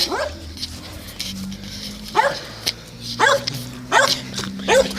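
A dog barking: four short barks about a second apart, starting about two seconds in, over a low steady hum.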